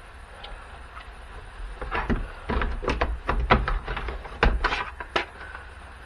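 Irregular clicks and knocks of small plastic and metal parts being handled while a battery jump pack is taken apart, few at first and then coming thick and fast for a few seconds from about two seconds in.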